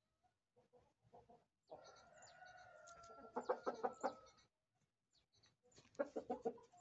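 Light Brahma rooster crowing once: a drawn-out call starting about two seconds in, breaking into short pulses at its end. A few short clucks follow near the end.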